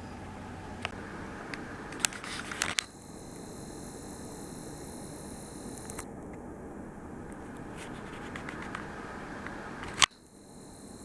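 Compact digital camera being handled and operated: a cluster of sharp clicks about two seconds in, then a steady high-pitched whine for about three seconds; a loud click near the end brings the whine back briefly.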